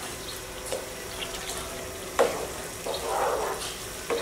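A spatula stirring rice through water and milk in a large aluminium pot: soft sloshing of the liquid, with a few sharp knocks of the spatula against the pot, the loudest about halfway through and at the very end.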